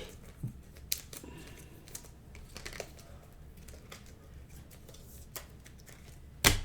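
Scattered light clicks and taps, irregular and soft, with one sharper knock near the end.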